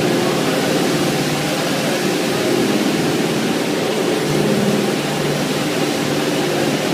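BRS 320 four-brush automatic carpet washing machine running, its brushes scrubbing a foam-covered carpet: a steady mechanical hum under a continuous scrubbing noise.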